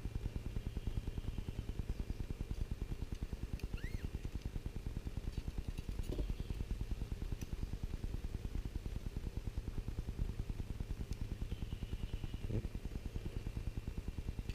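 A machine running in the background, making a fast, even, low pulsing several times a second, with a faint steady high tone over it.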